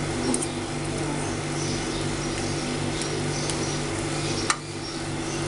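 Metal spoons clicking and scraping lightly on a non-stick frying pan as a cooked gram-flour crepe is rolled up. There are a few soft clicks and one sharper click about four and a half seconds in, over a steady low hum.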